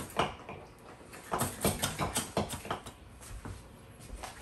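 Spinning reel and rod being handled while line is wound on by hand: a few irregular light clicks and scrapes.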